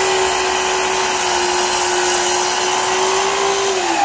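Festool Kapex KS 120 sliding mitre saw running at full speed, a steady motor whine over the hiss of its automatically switched dust extractor. Near the end the trigger is released and the motor's pitch falls as the blade winds down.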